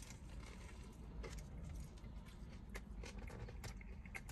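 Faint chewing of a mouthful of fried chicken sandwich, with scattered small clicks and crunches.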